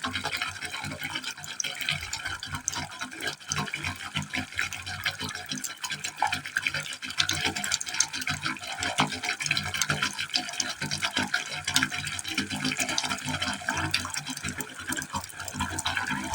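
Water falling steadily into a pipe hole, splashing and gurgling continuously.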